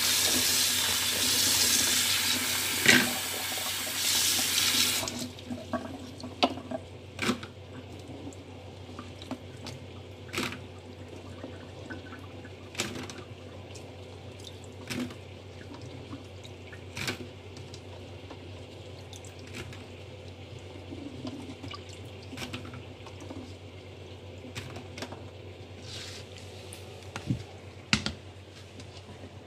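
Kitchen tap running into a bowl of raw in-shell peanuts in a stainless steel sink while a hand scrubs them, shut off about five seconds in. After that, scattered splashes and clicks of the peanuts being rubbed and swished by hand in the standing water.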